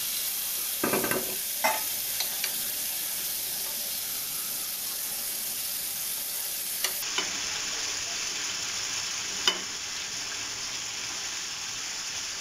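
Chicken frying in hot oil in a karahi, a steady sizzle. A handful of knocks and splashes cluster in the first couple of seconds and a few more come later, with one sharper click, as halved tomatoes are dropped into the pan.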